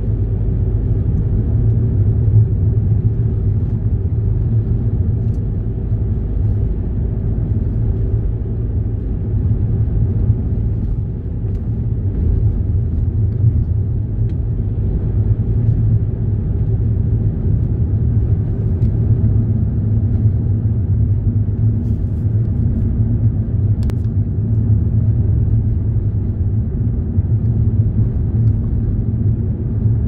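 Car driving at road speed, heard from inside the cabin: a steady low rumble of engine and tyre noise.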